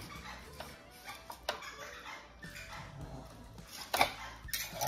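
Knife slicing a fillet free along a fish's backbone near the tail, with a few short sharp knocks, the loudest about four seconds in.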